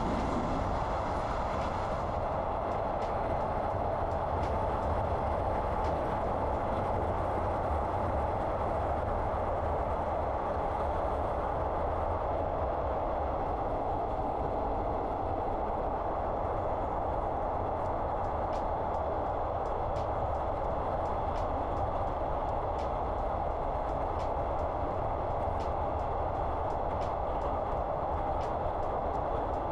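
Passenger train running at speed, heard from inside the carriage: a steady rumble and hum, with faint light ticks in the later part.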